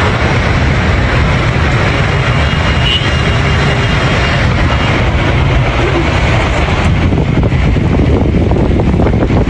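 Strong wind buffeting the microphone: a loud, steady rumbling roar with no breaks.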